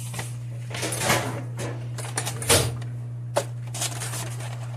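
A few knocks and short clatters of kitchen things being moved and set down on the counter, the loudest about halfway through, over a steady low hum.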